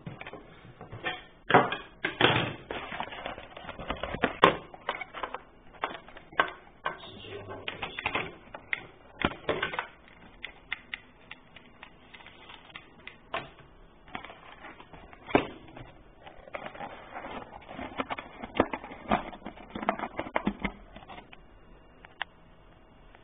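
Irregular clicks, taps and rustles of a box and its packaging being handled and opened, coming in clusters with quieter gaps between.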